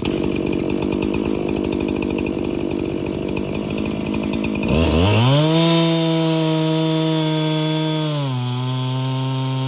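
Two-stroke chainsaw idling on an Alaskan-style chainsaw mill, then revved up about five seconds in to a steady high pitch that steps down a little and holds lower near the end.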